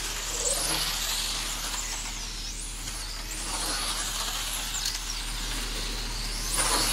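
Electric 1/10-scale PRO10 pan cars racing, their motors whining high and rising and falling in pitch as they accelerate and brake through the corners. Near the end one car gets louder with a rising whine.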